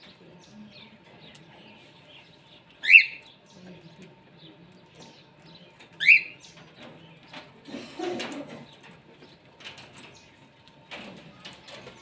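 Small parrots in an aviary: two short, sharp upward-sweeping calls about three seconds apart, the loudest sounds, then a burst of wing flapping and rustling around eight seconds in and again near the end, over faint bird chatter.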